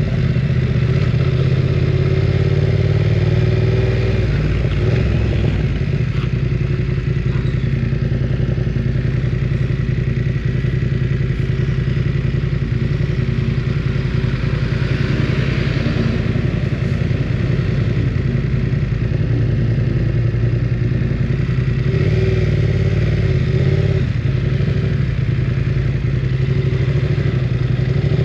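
BMW F900 R motorcycle's parallel-twin engine running under way at fairly steady revs, with small changes in pitch near the start and again near the end.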